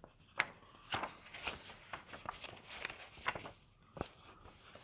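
Scattered soft clicks and light rustling of small objects being handled, a dozen or so short ticks spread through the pause, in a small room.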